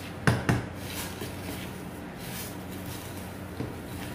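Wooden spatula knocking twice in quick succession against a stainless steel saucepan as dry spaghetti is pressed down into boiling water, with a softer knock near the end. A steady low hum runs underneath.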